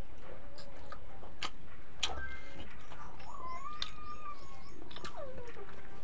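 Eating by hand from steel plates: a few sharp clicks and taps of fingers and food against the metal. About three seconds in, a long wavering high call, then a short falling one a little after.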